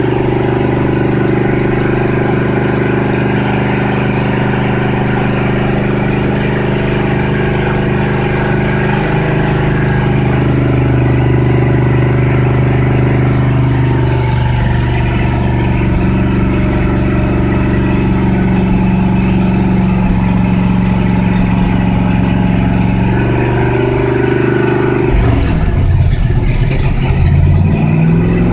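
1976 Ford F-350 pickup engine idling steadily at a fast idle, heard at the exhaust. It has just been cold-started after sitting two years, with the idle not yet set down and the choke and PCV not hooked up. Near the end the running turns uneven for a few seconds.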